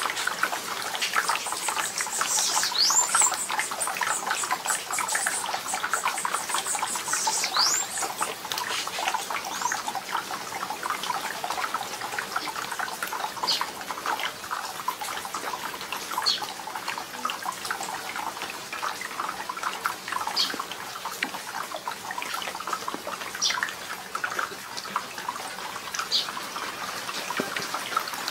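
Rain falling and dripping on leaves. A few bird calls sound over it: two sweeping calls in the first several seconds and short chirps now and then.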